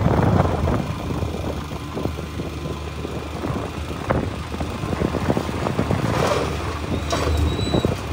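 Heavy diesel machinery running steadily, a low engine rumble with scattered knocks and clatter.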